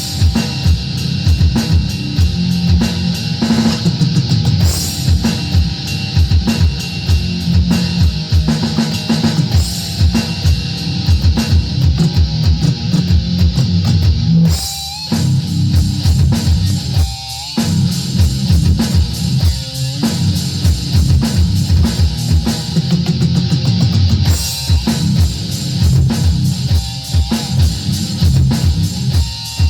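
Heavy rock instrumental: guitar over a drum kit keeping a steady beat, with a couple of short breaks about halfway through.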